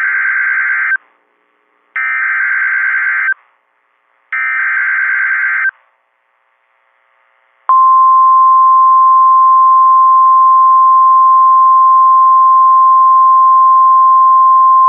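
Three buzzy data bursts about a second long each, the EAS/SAME digital header, followed by the NOAA Weather Radio 1050 Hz warning alarm: a single loud steady tone starting about eight seconds in.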